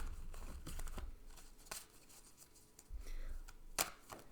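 Tarot cards being handled: scattered soft rustles and a few sharp card snaps, the clearest about a second and a half in and again near the end.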